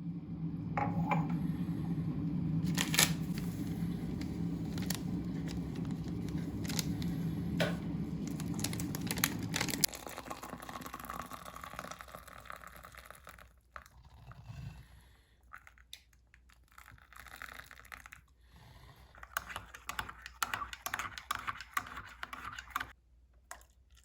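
Packaging being handled and opened: scattered clicks and knocks with tearing and crinkling, over a low steady hum that cuts off about ten seconds in.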